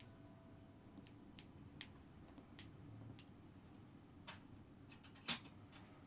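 A cat's claws catching and pulling free of a fabric cushion as it kneads, making faint, irregular clicks and ticks. A short cluster of louder clicks comes about five seconds in.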